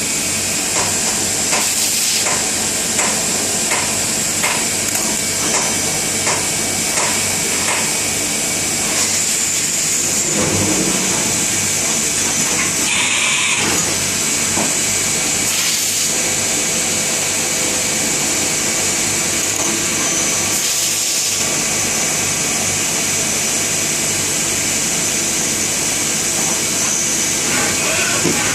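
A machine tool, most likely an NC machine, running and machining with a steady hiss, hum and a high whine. Light regular ticks come about twice a second through the first eight seconds or so, and a few brief louder swells follow.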